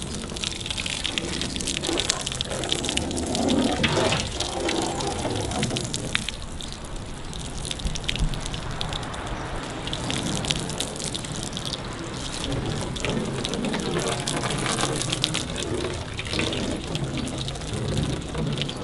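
An open stream of water gushing and splashing onto a car's painted body panels and glass. This is a sheeting rinse that shows how the water runs off the sealed paint.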